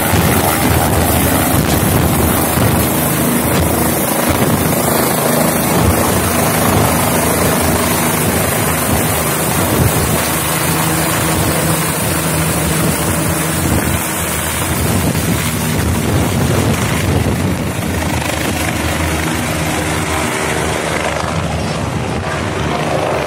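OH-58D Kiowa Warrior helicopter taking off: the rotor and turboshaft engine run loud and steady as it lifts from the hover and climbs away overhead. It grows gradually fainter through the second half as it draws off.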